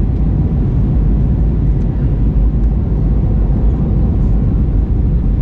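Airbus A319 cabin noise heard from a window seat over the wing: a steady low roar of engines and airflow during approach, with the flaps set to position 2.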